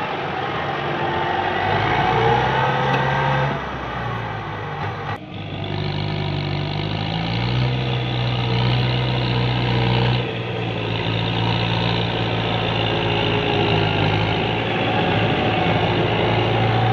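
Kubota farm tractor's diesel engine running steadily while working, its note stepping up and down a little. The sound changes abruptly about five seconds in and again about ten seconds in.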